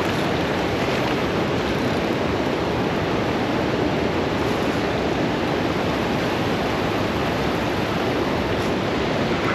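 Steady rushing of river water, an even, unbroken noise.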